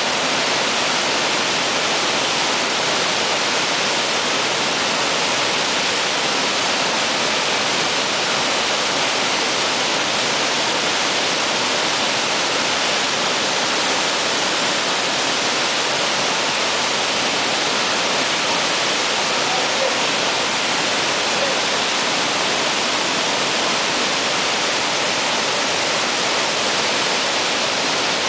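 Waterfall plunging about 35 metres into a river pool: a loud, steady rush of falling water.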